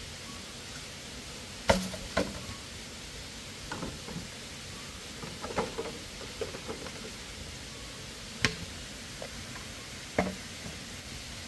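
Scattered knocks and taps, about seven at uneven intervals, the loudest a little under two seconds in, over a steady low hiss.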